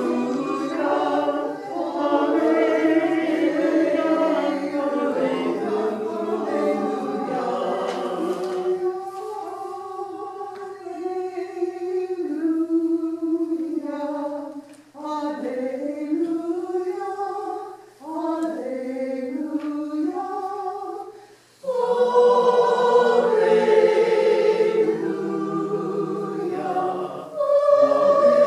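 A small choir of men's and women's voices singing. About nine seconds in, the sound thins and drops in level for roughly twelve seconds, with brief breaks between phrases, then the full choir comes back in.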